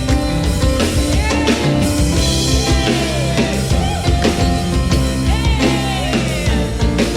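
Upbeat worship song with drum kit, bass and guitar, with a few sliding melodic notes in it.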